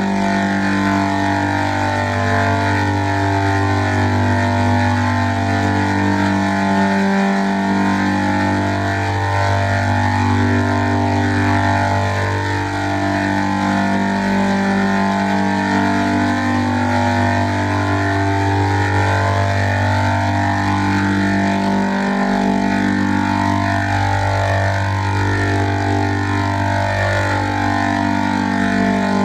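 A loud, steady, pitched drone: a low held note under higher tones that shift about once a second, with the low note breaking briefly about every fifteen seconds as the pattern repeats.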